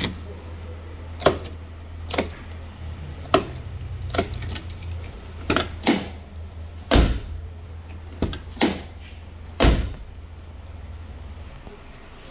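Keys jangling on a key ring and a key working the door lock of an Alfa Romeo Arna, then the door handle and latch clicking as the door is opened: a string of sharp clicks and knocks, with two heavier thuds about halfway through.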